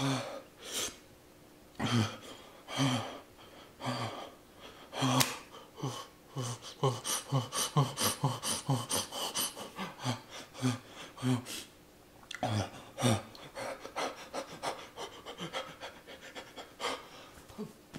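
A man panting and gasping hard in short, voiced breaths, his mouth burning from the extremely hot Paqui One Chip Challenge chip. The breaths come fastest in the middle, about two a second, with a brief pause before they start again.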